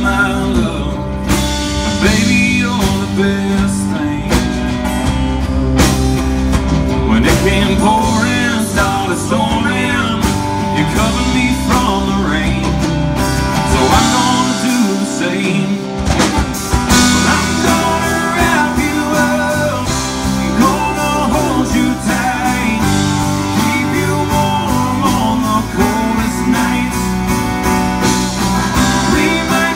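Live band playing a song: male lead vocal over strummed acoustic guitar, electric bass and drums. The low end drops out for a couple of seconds about halfway through.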